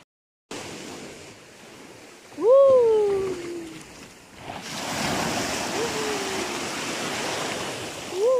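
Shallow sea water washing and foaming over a pebble and coral-rubble shore, turning into a steady wash about halfway. Three short cries that glide down in pitch rise above it, the first the loudest.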